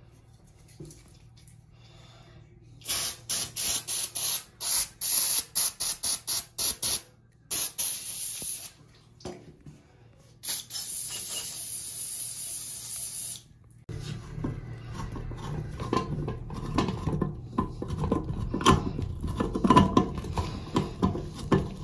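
Aerosol can of Hilco-Lube penetrating lubricant spraying onto a seized Delta shower-valve bonnet nut to free it: first a quick run of short spurts, about three a second, then two longer sprays of one to three seconds. After that comes a stretch of knocking and clatter that grows louder near the end.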